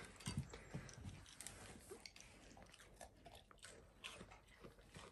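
Faint, irregular crunching and chewing of an Alaskan Malamute eating green beans.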